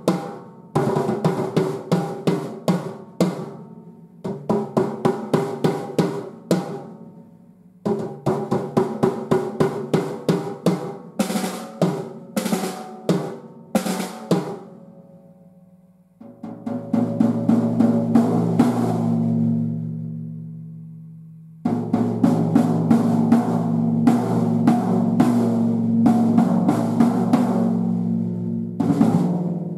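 Sonor Martini compact drum kit with poplar shells (14-inch bass drum, 12-inch snare, 8-inch tom, 13-inch floor tom) being played in short phrases of rapid strokes separated by brief gaps. About sixteen seconds in, a sustained roll rings out and fades for a few seconds before playing resumes steadily.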